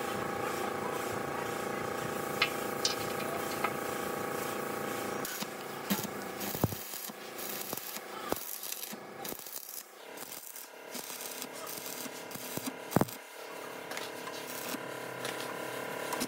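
Workshop machine running with a steady hum of several tones. About five seconds in it quietens, leaving irregular scraping and scattered clicks, with one sharp knock near the end.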